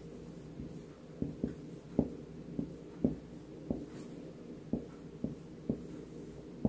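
Marker pen writing Chinese characters on a whiteboard: a string of short taps and scrapes, one for each pen stroke, coming irregularly at about two a second.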